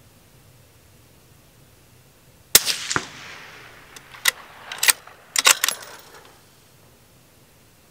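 A single rifle shot from a Ruger American Gen II bolt-action rifle in .223 Remington about two and a half seconds in: a sharp crack with a trailing echo. Several sharp clacks follow over the next three seconds.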